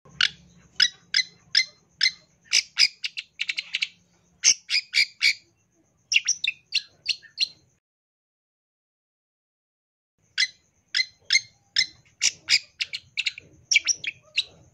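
Long-tailed shrike giving a series of short, sharp, harsh calls, two to four a second, quickening into a fast run about three seconds in. After a pause of nearly three seconds a second series starts.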